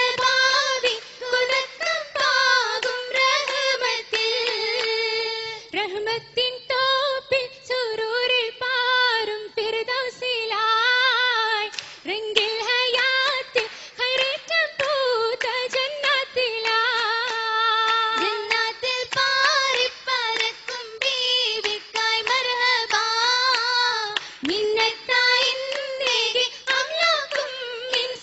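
A group of girls singing an Oppana song in unison, a Mappila folk melody, with short rhythmic hand-claps beating through it.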